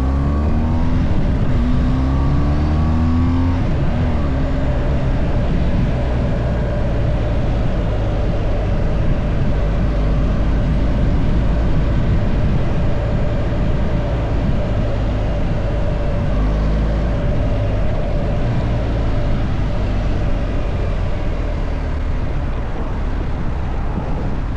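Car engine and road noise: the engine rises in pitch as it accelerates over the first few seconds, then runs on steadily with a low rumble, and begins to rise again near the end.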